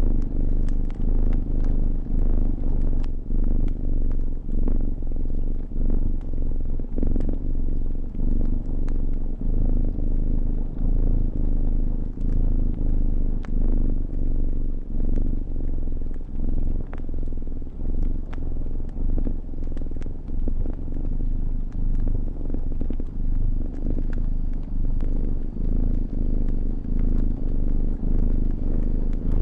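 A cat purring loudly and steadily, each breath in and out making a swell that comes about once a second. Small crackles and pops from a wood fire are scattered over it.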